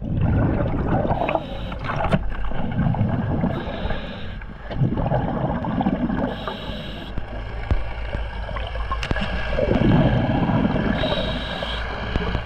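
Underwater audio of a scuba diver breathing through a regulator: a short hiss on each inhale followed by a low bubbling rumble on the exhale, repeating about every four seconds over steady water noise, with a few sharp clicks.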